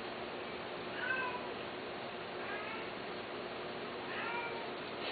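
Long-haired Persian-type cat meowing three times, short high-pitched meows about a second and a half apart, over a steady background hiss.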